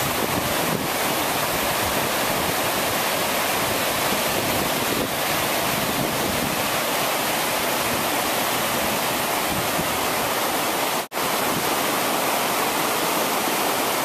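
Mountain river rapids: fast water rushing over rocks in a steady, loud wash of noise. The sound drops out for an instant about eleven seconds in.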